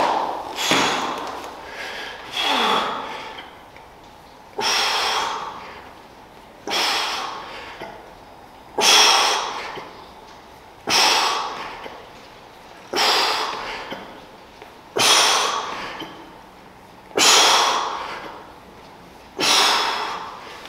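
A man breathing forcefully in time with dumbbell bench-press reps. About ten sharp, noisy exhales come one roughly every two seconds, each starting suddenly and trailing off.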